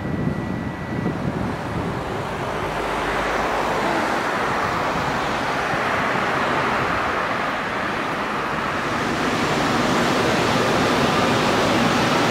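Road traffic noise: a steady rushing sound that grows louder and fuller in the second half.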